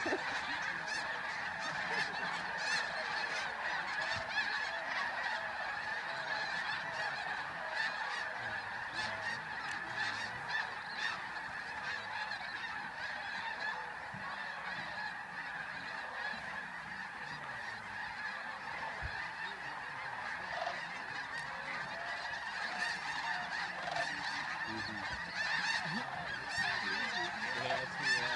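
A huge flock of geese honking, with countless calls overlapping into one continuous, dense chorus.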